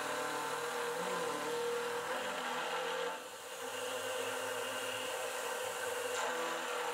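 Precision Matthews PM25MV CNC mill face-milling an aluminium block with an insert face mill: a steady cutting whine over the spindle's hum, dipping briefly about three seconds in.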